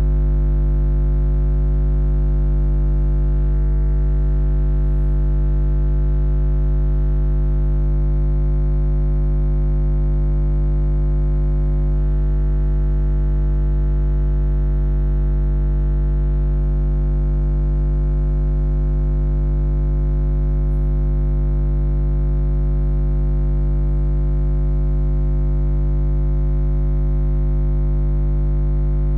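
Background music: a single held synthesizer drone, low and unchanging, with many overtones.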